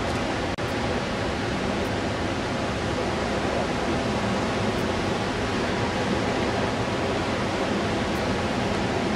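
Steady, even rushing noise outdoors, with a brief dropout about half a second in.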